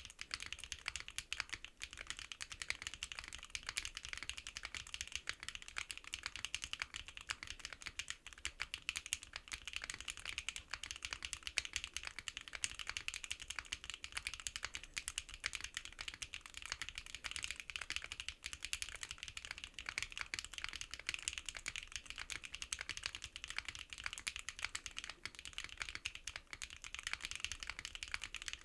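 Continuous fast typing on a NEO65 custom mechanical keyboard fitted with HMX Canglan V2 linear switches: a dense, unbroken stream of short, high-pitched key clacks.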